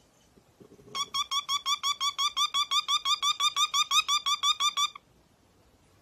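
A cockatiel giving a fast run of identical high beeps, about six a second, like an electronic alarm. The beeping starts about a second in and stops shortly before the end.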